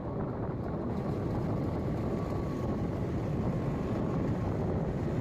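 Steady road and engine noise of a moving vehicle travelling along the highway.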